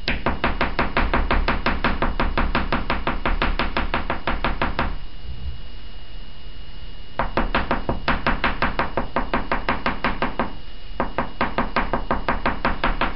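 Oil pastel stick dabbed rapidly onto paper on a table, short tapping strokes at about six a second, in three runs with two brief pauses, as colour is stippled in.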